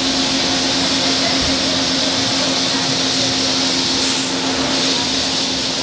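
Citizen L20 Swiss-type CNC lathe running on the shop floor: a steady machine hum with a constant hiss, and a short burst of louder hiss about four seconds in.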